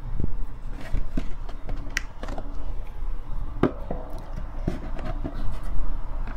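Handling noise as a wooden stick is wedged into a hollow gourd resonator (deze) to hold an mbira in place: scattered knocks, taps and scraping of wood against the gourd.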